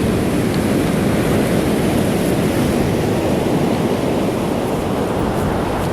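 Steady rush of Pacific surf breaking on a beach, mixed with strong wind buffeting the microphone.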